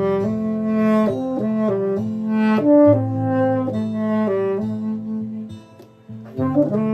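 Instrumental pop backing track: a saxophone-like lead plays a slow melody of held notes over a sustained bass line, dropping away briefly near the end before the next phrase comes in.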